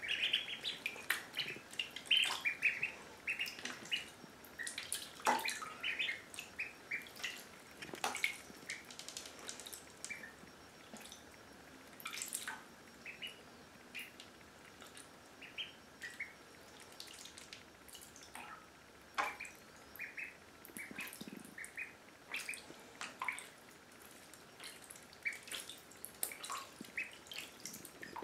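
Indian Runner ducklings peeping in short runs of high chirps while paddling in shallow bathtub water, with small splashes and drips throughout. The peeping is busiest in the first few seconds.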